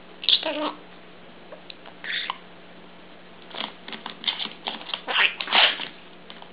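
Budgerigar chattering in short scratchy chirps: a few in the first half, then a quick run of them in the second half.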